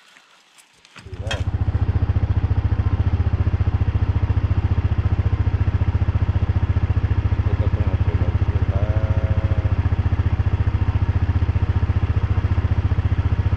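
An engine starts about a second in and runs steadily with a fast, even low throb.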